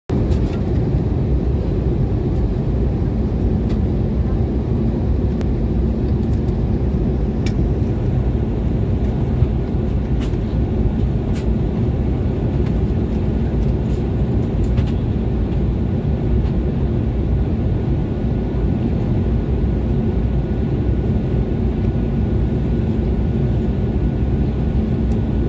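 Steady low rumble of engine and airflow noise inside the cabin of an Airbus A320neo on its approach to land, with a few faint clicks. A faint, steady high tone comes in over the last few seconds.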